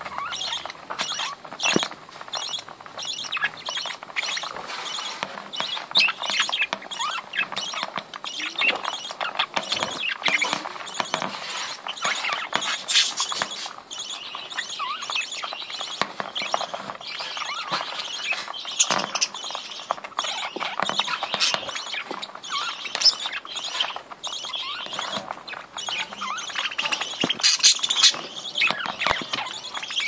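A flock of budgerigars pecking and husking seed in a plastic feed dish: a dense, irregular clatter of small beak clicks and seed rustle, mixed with short budgie chirps.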